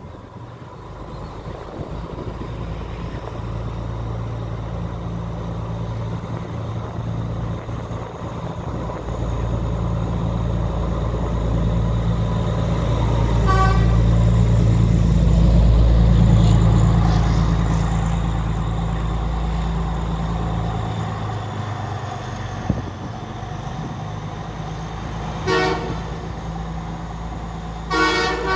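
Diesel passenger train engine running with a low, steady drone that builds to its loudest about halfway through, then eases off as the train pulls away. A brief horn toot sounds about halfway through, and two short horn blasts come near the end.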